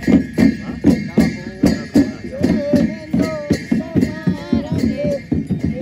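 Shamans' ritual chanting over a steady jingling beat of bells, about three to four beats a second.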